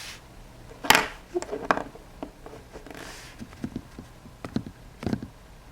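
Light clicks and taps of small hard plastic toy figurines being handled and set down, the sharpest about a second in and a few softer ones near the end.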